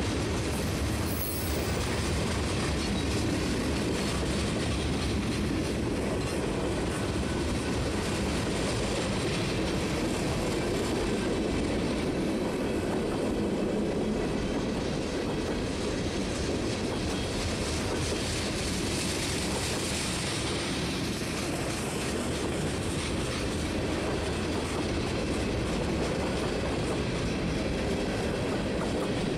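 Freight cars of a mixed manifest train rolling past close by: a steady, even noise of steel wheels running on the rails.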